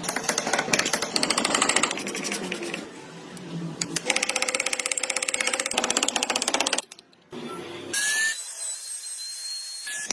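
Small power woodworking tool cutting or shaping wood, a fast, even rattling chatter. It comes in several short stretches that start and stop abruptly, with a brief near-silent gap about seven seconds in.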